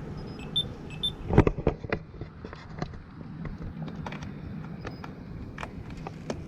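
Pedestrian crossing signal beeping about twice a second, stopping about a second in. After that comes a run of sharp clicks and knocks over a steady low hum.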